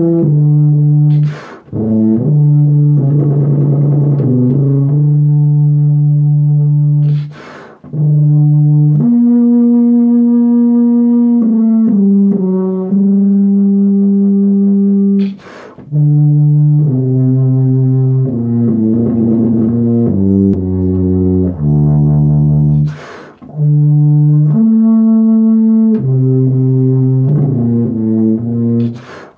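BBb tuba (Miraphone 186) playing a slow, unaccompanied melody of long, held low notes joined smoothly. Quick breaths are taken between phrases, about every six to eight seconds.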